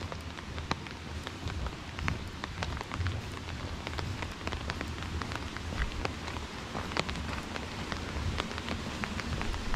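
Steady rain hissing, with many sharp, irregular taps of individual drops close by.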